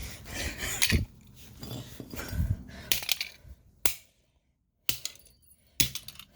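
A plastic charger/AC adapter being smashed: a series of sharp knocks and clinks of hard plastic and inner parts, one of them a duller thump.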